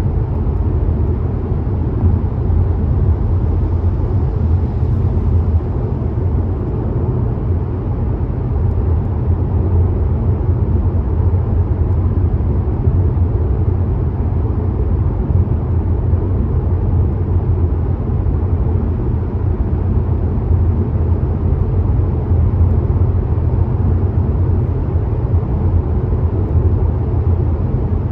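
Car cruising on a motorway: a steady drone of tyre and engine noise, low in pitch and even throughout.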